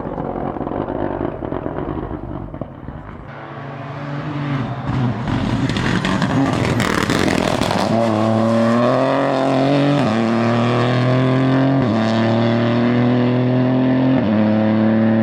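Rally car at full throttle, approaching and passing close by, then accelerating away with an upshift about every two seconds.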